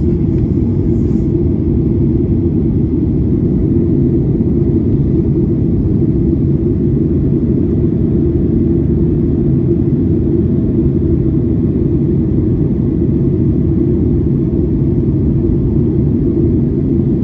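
Boeing 737-800 after takeoff: its CFM56 turbofan engines and the airflow give a steady low rumble that does not change.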